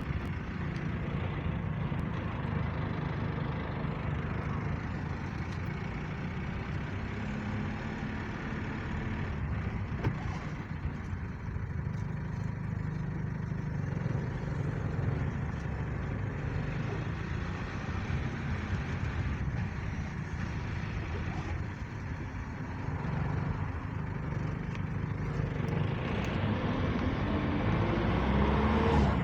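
Motor vehicle running: a steady low rumble of engine and road noise, with a tone rising in pitch near the end.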